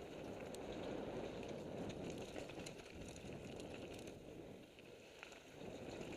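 Mountain bike riding fast down a dirt forest trail, heard from a helmet-mounted camera: wind rushing over the microphone and tyres rolling over dirt and stones, with scattered small clicks and rattles from the bike and trail.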